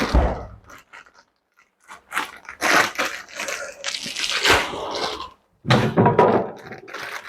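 Plastic bag of frozen chips being handled, rustling and crunching in two spells with a short pause between them.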